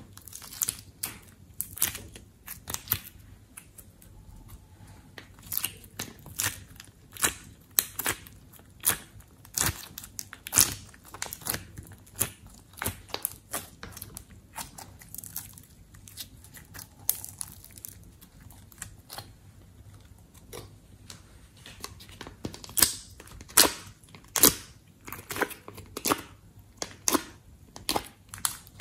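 Glossy slime being pressed out of plastic trays and squeezed by hand, giving irregular sticky crackles and pops a few times a second. They grow denser and louder in the last few seconds.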